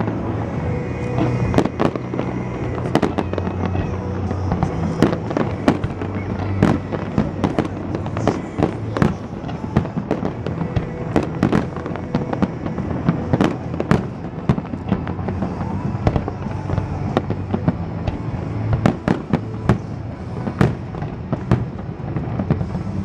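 Fireworks going off in a rapid, irregular string of bangs and crackles over a music soundtrack with a steady low beat.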